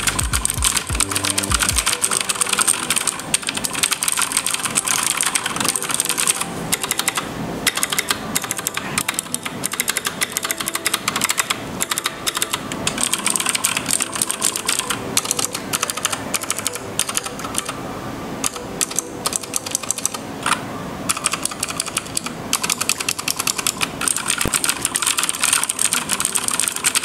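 Fast, continuous typing on an OEM copy of the Keychron K6 wireless mechanical keyboard: a dense clatter of key presses.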